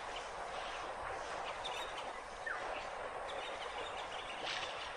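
Steady outdoor background hiss with a few faint, short chirps, one of them a brief falling glide about halfway through.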